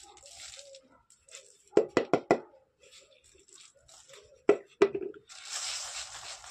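A plastic container is knocked sharply several times: three quick knocks about two seconds in and two more a little before five seconds. Then comes a steady scraping hiss of damp star composition being rubbed by hand through a wire mesh screen.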